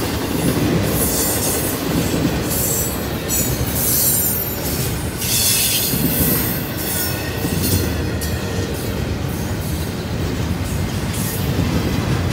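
Double-stack intermodal freight cars rolling past, a steady heavy rumble from the wheels and trucks with irregular high-pitched wheel squeal coming and going over it, strongest in the first half.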